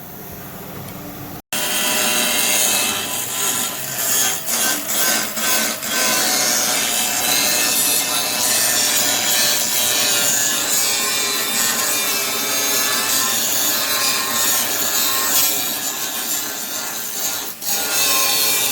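A power tool cutting or shaving down sheet aluminum, a loud steady rasping noise that starts abruptly about a second and a half in and dips briefly a few times.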